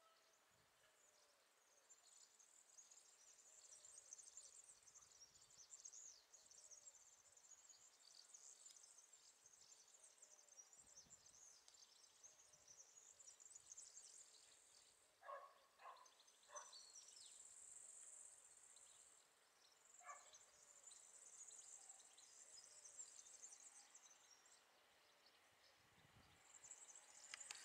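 Near silence, with faint high-pitched insect chirring almost throughout and a few short chirps about halfway through.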